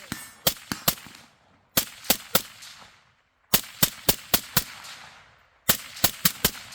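Gunshots on a firing range: quick strings of four to six sharp cracks, each with a short echo, with pauses of about a second between strings.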